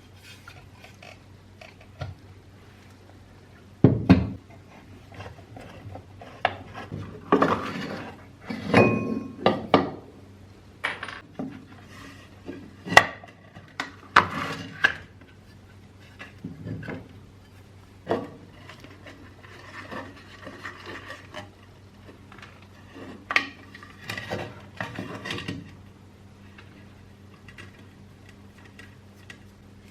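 Irregular metallic clinks, knocks and scrapes of metal parts and tools being handled, the sharpest knocks coming in clusters with quieter stretches between.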